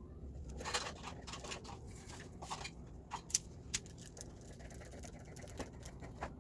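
Knife cutting shapes in rolled crescent dough on parchment paper: a scatter of small, irregular taps and scrapes, the sharpest click a little past halfway.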